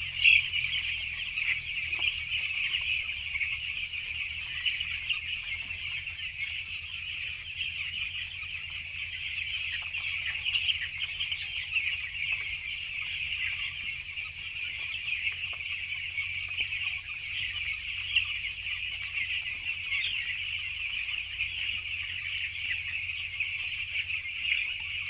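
A flock of young poultry chicks peeping constantly, a dense high-pitched chorus of many overlapping calls, with a faint low steady hum underneath.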